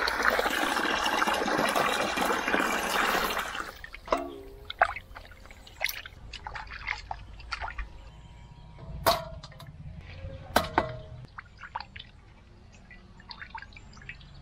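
Running water splashing for about the first four seconds, then cutting off. A few scattered light clicks and knocks follow.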